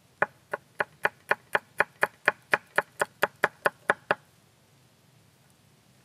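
Chef's knife slicing garlic cloves on a wooden cutting board: a steady run of sharp taps of the blade on the wood, about four a second, stopping about four seconds in.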